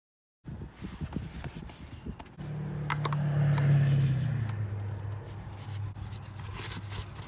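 Engine oil filler cap being handled and screwed back on, with small scrapes and clicks. About two seconds in a low engine hum comes up, loudest for a second or two, then drops in pitch and carries on.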